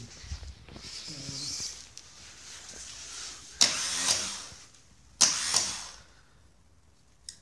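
Starter motor on a 998cc classic Mini engine spinning over in two short bursts, each starting suddenly and dying away within about a second, as a jump lead is touched to it; the engine does not catch, and the lead is not making a proper connection.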